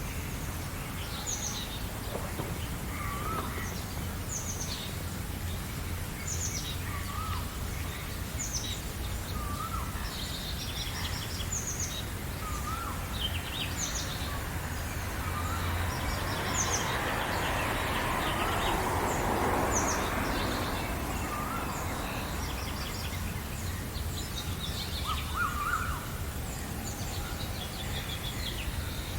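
Several birds singing: short high chirps repeating about once a second, with a lower curling call every few seconds, over a steady low rumble. A broad rushing noise swells and fades in the middle.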